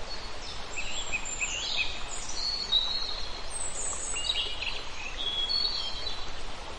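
Several songbirds chirping and singing, with short rising and falling chirps and quick trills, over a steady outdoor hiss.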